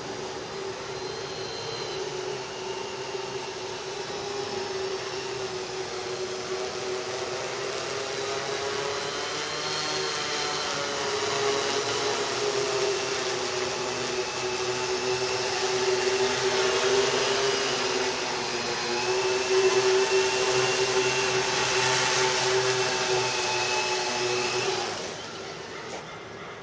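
Hexacopter's six brushless motors and 12-inch propellers in flight, a steady buzzing drone that wavers in pitch as the throttle changes and grows louder as it comes closer. Near the end the buzz drops away sharply as the craft sets down.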